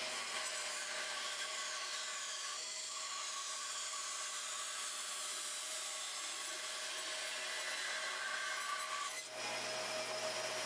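Bandsaw running steadily as its blade cuts a wavy line through a thick glued-up walnut panel inlaid with purpleheart, mahogany and thin maple strips.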